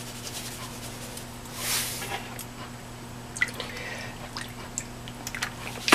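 Wet raw pork spare ribs handled on a plastic cutting board: small squishes, drips and light clicks, with a brief hiss about two seconds in, over a steady low hum.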